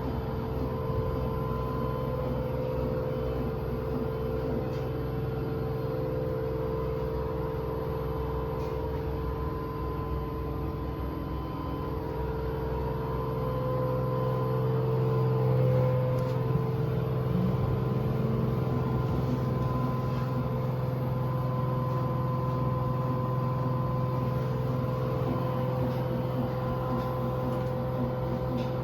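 Washing machine spinning at its maximum speed: a steady motor hum with a whine, swelling a little in loudness about halfway through.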